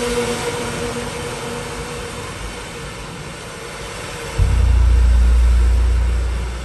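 Live electronic music through a concert sound system: a hissing wash with a held drone that fades away, then a very loud, deep sustained bass tone comes in about four seconds in and holds.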